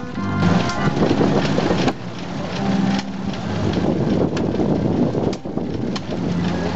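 Vintage stationary engines running, a busy mechanical clatter with wind buffeting the microphone; the sound changes abruptly about two seconds in.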